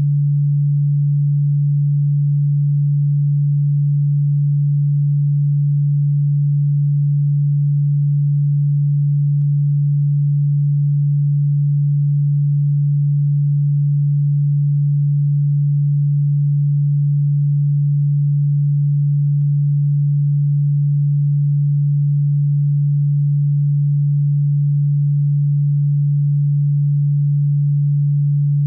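A steady, unchanging low electronic pure tone, played as a supposed cockroach- and ground-bug-repelling frequency.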